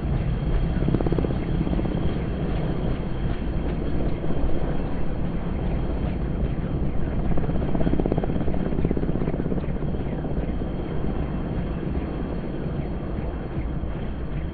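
Bell 206 JetRanger helicopter hovering low, its single turboshaft engine running and main rotor giving a steady, rapid chop, swelling slightly in the middle and easing a little near the end.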